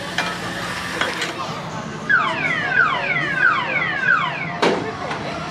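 A whistling electronic tone that sweeps down in pitch four times in quick succession, like a car alarm, followed by a sharp knock.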